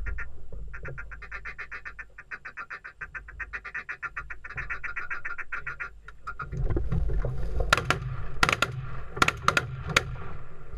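A duck call blown in quick chattering runs of about a second each, a rapid feed-call rhythm. Past the halfway mark it gives way to louder rustling and handling noise, with four or five sharp knocks close together as the hunter moves in the blind.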